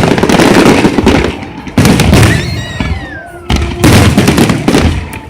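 Fireworks display: three loud aerial shell bursts, one at the start, one just under two seconds in and one about three and a half seconds in, each followed by fading crackling. A brief falling whistle sounds between the second and third bursts.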